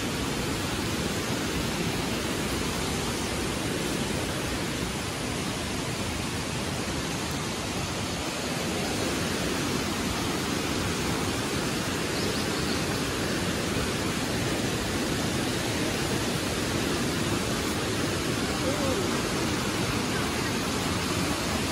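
Steady rush of a fast river running over rocks and rapids, an even, unbroken water noise.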